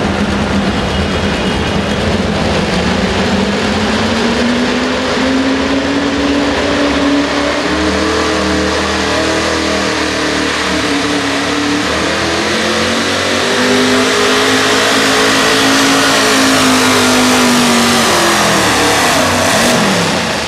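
Pro Stock pulling truck's engine at high revs, pulling the weight-transfer sled. The engine note climbs early on, wavers, rises again and then falls off near the end.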